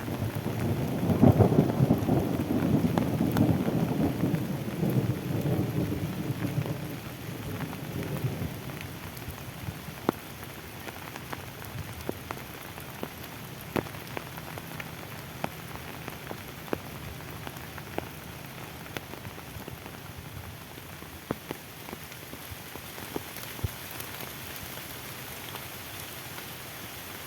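A thunderclap's low rumble rolling over steady rain for the first several seconds, then dying away. After that, steady rain on foliage with scattered sharp single drops hitting close by.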